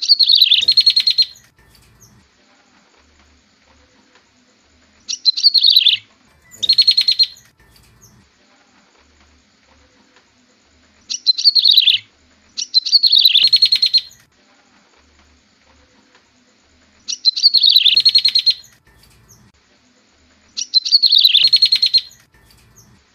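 Prenjak tebu (yellow-bellied prinia) call played as a lure: seven loud, high phrases, each about a second long and loosely in pairs, every phrase a quick falling note running into a fast trill.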